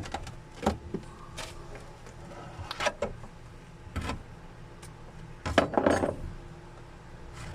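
Scattered clinks and knocks of tools and metal parts being handled, a few sharp strikes spread over several seconds.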